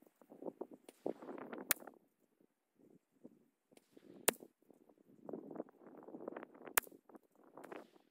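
Three single .22 LR rimfire rifle shots, about two and a half seconds apart, heard as short, fairly faint cracks from the target end of a 50-yard range.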